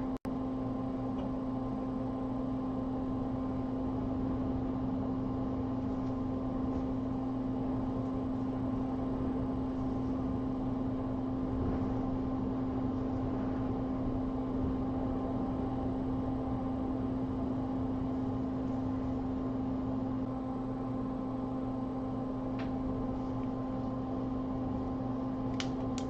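Hot air rework station blowing steadily with a constant hum, reflowing solder paste on a chip-reballing stencil into solder balls. A few faint ticks near the middle and the end.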